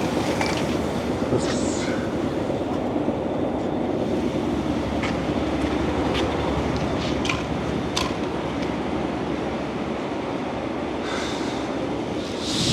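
Steady mechanical rumble of heavy machinery running, with scattered light metallic clicks and clanks.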